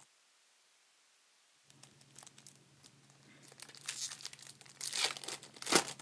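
Plastic trading-card pack wrapper crinkling and tearing as it is opened by hand. It starts about a second and a half in and grows busier, with the loudest sharp crinkles near the end.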